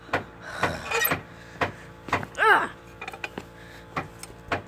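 Footsteps and phone-handling knocks at a walking pace, about two a second. About halfway through a short hum rises and falls in pitch.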